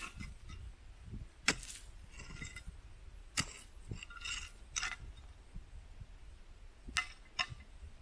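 Hard stones clinking and knocking together in about five sharp, separate strikes, some ringing briefly, the last two close together near the end.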